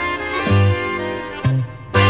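Background music: a tune of held pitched notes over a repeating bass note.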